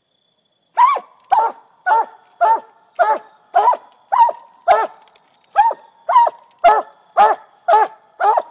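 Coonhound barking treed: loud, evenly spaced chop barks, about two a second, starting about a second in. This is the steady bark a hound gives at the foot of a tree when it has game treed.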